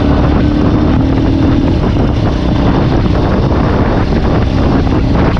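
Wind rushing over an action camera's microphone on a moving Honda scooter, over the scooter's engine running at cruising speed. A steady engine hum fades into the wind noise about two seconds in.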